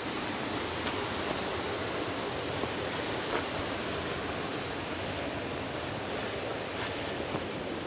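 Waterfall rushing: a steady, even roar of falling water, with a few faint ticks.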